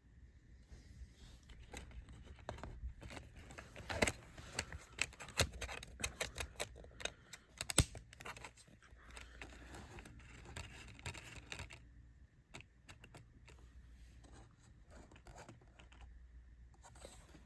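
Packaging being handled: a dense run of scratching, rustling and sharp clicks for about eleven seconds, then only a few scattered clicks.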